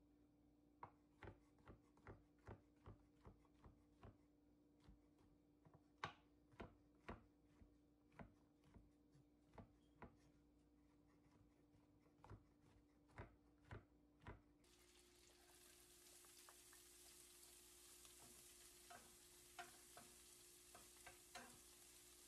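Faint knocks of a knife slicing mushrooms on a wooden cutting board, irregular, about one or two a second. About two thirds of the way in it gives way to green onions sizzling in a stainless steel pan, a steady hiss with a few clicks of a wooden spatula stirring.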